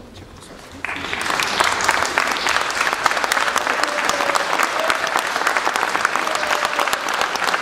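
A crowd of protesters applauding, dense clapping that starts suddenly about a second in and keeps up steadily, with faint voices beneath.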